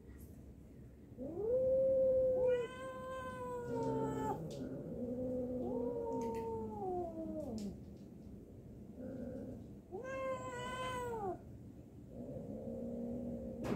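Two cats yowling at each other in a standoff: about five long, drawn-out yowls that rise and then fall in pitch, some overlapping, the first the loudest.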